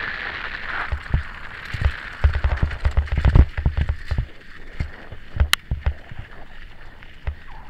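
Mountain bike descending a rough dirt trail, heard through an action camera's microphone: wind rushing over the mic, then a run of thumps and rattles as the bike jolts over bumps, heaviest about halfway through, with one sharp click a little later.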